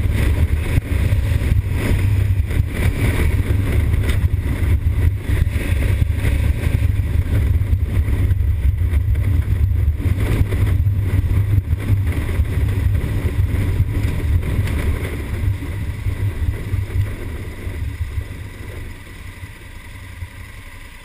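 A 2020 Honda Africa Twin's parallel-twin engine runs steadily at cruising speed, with a strong low engine note under wind rush. About eighteen seconds in, the engine and wind noise drop off as the motorcycle slows down.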